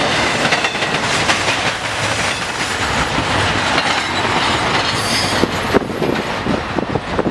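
The tail end of a double-stack intermodal freight train rolling past, steel wheels clattering over the rail joints, with a thin high wheel squeal between about one and a half and three seconds in. The noise thins and fades from about five and a half seconds in as the last car moves away.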